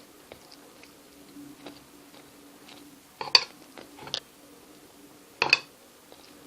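Ketchup being squeezed from a bottle onto a plate: a few short sharp spurts and clicks about three seconds in, again near four seconds and at five and a half seconds, over a faint steady hum.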